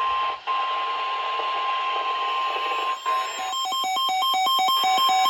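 Emergency alert tone: a single steady high-pitched beep over radio static hiss, briefly cutting out about half a second in and stopping at about three seconds. About half a second later a fast repeating electronic pattern of alternating beeps at several pitches starts and runs on.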